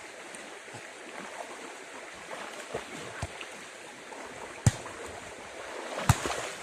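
River water running steadily, with a few sharp knocks or splashes, the loudest two about two thirds of the way in and near the end.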